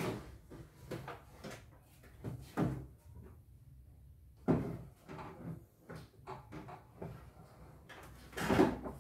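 Plastic housing and cover of a portable embroidery machine being handled on a wooden table: a few knocks and clatters, the loudest near the end, with small clicks in between.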